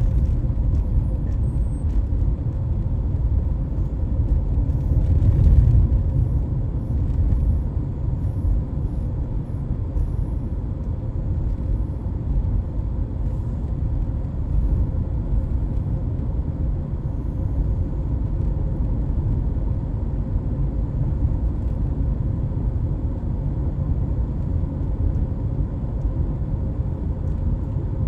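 Road and engine noise heard inside a moving car's cabin: a steady low rumble that swells briefly about five seconds in.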